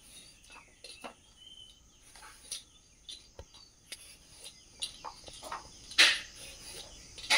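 Hand vegetable peeler scraping strips of skin off a Mangalore cucumber in short, irregular strokes, the loudest about six seconds in.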